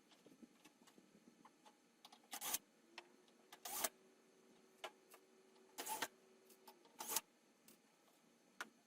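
Scattered light clicks and taps with four louder short knocks, from handling the oven door's metal panels and tools while taking it apart.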